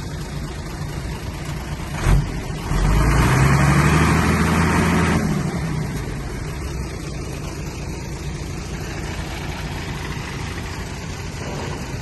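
Heavy machinery diesel engine running steadily, with a short knock about two seconds in. Just after, the engine revs up for about two and a half seconds, then drops back to a steady idle.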